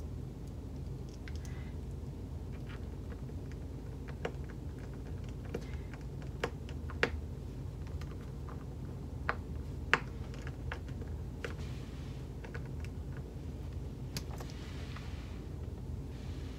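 Light, scattered metal clicks and taps of a tiny screwdriver turning the small screws of a metal turn-lock back plate, a dozen or so irregular ticks over a steady low hum.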